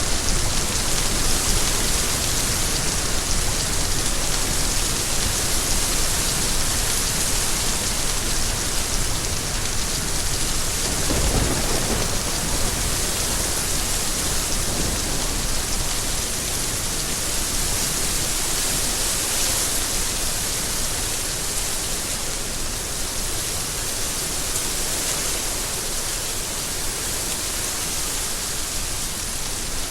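Steady rainfall, an even hiss of many drops. About eleven seconds in, a brief deeper swell rises under the rain.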